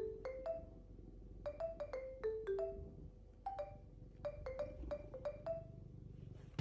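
Background music: a light melody of single struck notes on a marimba-like mallet instrument, a few notes a second.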